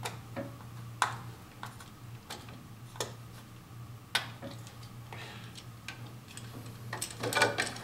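Scattered sharp clicks and taps of a screwdriver on the terminal screws of a plastic keyless light fixture, with plastic-on-plastic knocks as the fixture and its wires are handled against the plastic electrical box, a quicker cluster of clicks near the end. A low steady hum runs underneath.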